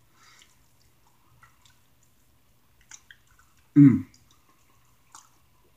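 Close-miked mouth sounds of eating chicken wings: faint wet chewing and lip-smacking clicks, with one short low 'mm' of the voice, sliding down in pitch, about four seconds in.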